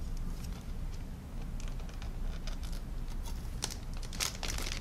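Light scattered clicks and taps of plastic model-kit sprues being handled, becoming more frequent near the end.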